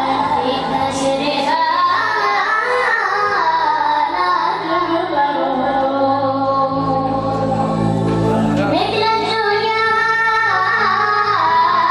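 A male munshid singing a mawwal, a free-rhythm Arabic vocal improvisation, in long ornamented lines that slide up and down in pitch, over a steady low drone.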